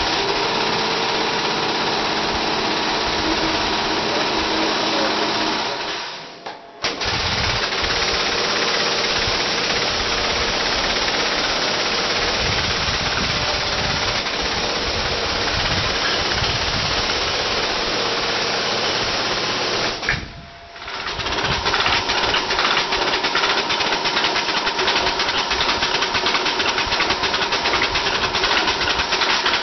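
Wilcom AutoTuft robotic tufting gun running, a steady mechanical chatter as it punches yarn into the backing cloth. The sound drops out briefly twice, and in the last third it turns into a rapid, even clicking.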